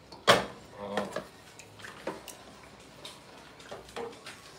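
Wooden spoon stirring heavy cream in a stainless steel sauté pan, scraping the bottom and tapping against the pan, with one sharp knock just after the start and scattered lighter taps after it.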